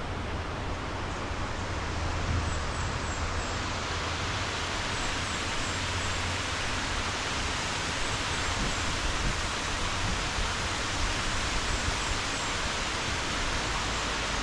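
Waterfall rushing: a steady, even hiss of falling water that grows louder about three seconds in. Faint, short high chirps repeat now and then above it.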